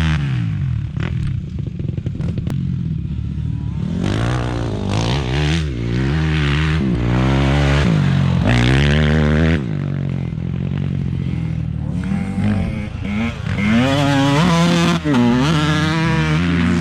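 Dirt bike engine revving up and down as the bike is ridden. The pitch climbs and falls repeatedly: it is lower for the first few seconds, climbs from about four seconds in, drops sharply near the middle, then climbs again toward the end.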